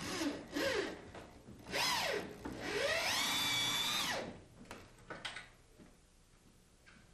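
Corded electric drill driving a 6-inch OlyLog screw through the top trim into the upright trim piece. Two short trigger bursts come first, then a longer run about two seconds in: the motor's whine climbs, dips, climbs again and holds steady, then winds down about four seconds in.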